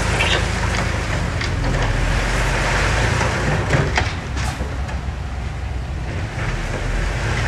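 Diesel engine of heavy earthmoving machinery running steadily under load, with a few short knocks about four seconds in.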